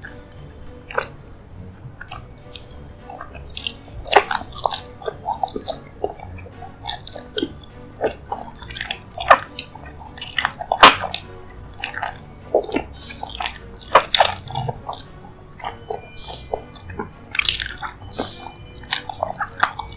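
Close-miked chewing and wet mouth smacks from eating a soft, creamy dessert: irregular sticky clicks, with faint background music.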